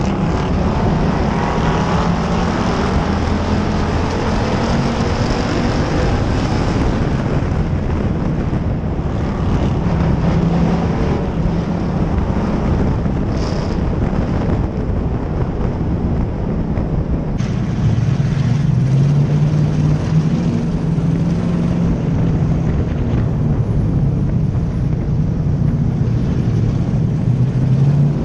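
Stock-car engines running hard in a racing pack, heard from an onboard camera on one of the cars. The sound is steady and gets louder about two-thirds of the way through.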